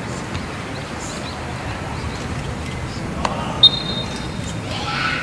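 Stadium crowd murmuring with scattered calls. About three and a half seconds in comes a short, loud referee's whistle blast, the signal for the penalty kick to be taken.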